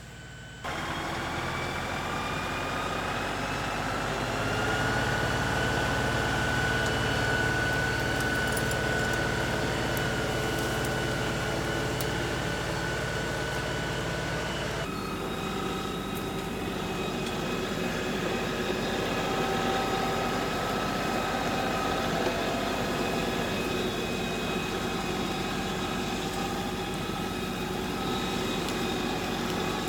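An engine running steadily, rising a little in pitch over the first few seconds; about halfway through the sound changes abruptly and a steady engine sound carries on.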